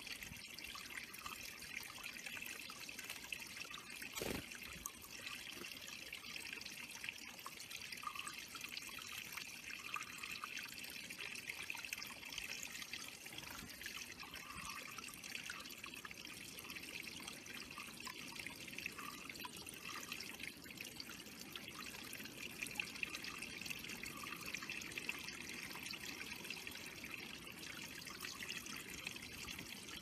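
Water trickling steadily over the stones into a shallow pebble-bottomed bird pond, with one brief sharp tap about four seconds in.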